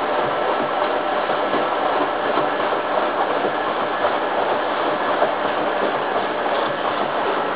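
Hoover Time Manager H130E washing machine running a 90-degree cottons wash, its drum turning with a steady, even mechanical noise.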